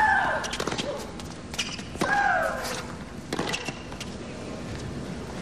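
A tennis rally on a hard court: sharp racquet strikes on the ball, a second or two apart. Two of the shots, at the start and about two seconds in, come with a loud, falling shriek from the player as she hits.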